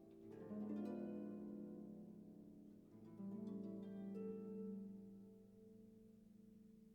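Quiet background music: slow plucked-string notes that ring on, with new notes struck near the start and again about three seconds in, then dying away.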